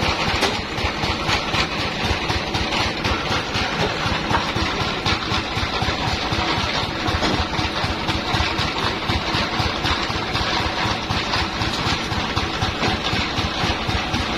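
Engine of a bandsaw sawmill running steadily, with a fast even low throb.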